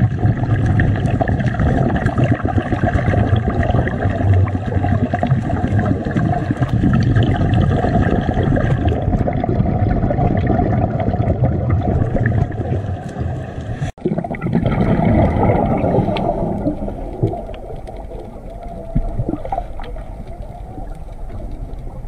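Underwater camera audio: a dense, muffled rush of water with a low rumble and many fine crackles. A brief dropout comes about 14 seconds in, after which the sound is lighter and slowly fades.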